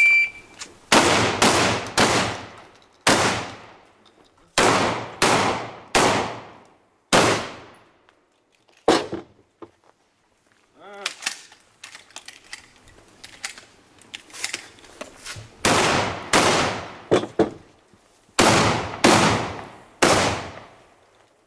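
A shot timer's start beep, then a shotgun fired in rapid strings at a practical shooting stage: about nine loud shots in the first half, a pause of several seconds with quieter clicks and knocks, then about six more shots near the end, each with a ringing echo.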